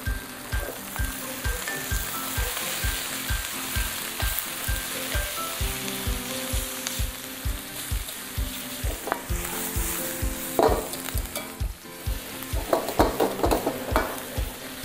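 Pork belly and green bell peppers sizzling in a hot wok as they are stir-fried. Near the end a metal ladle clinks against the wok several times. Background music with a steady beat plays underneath.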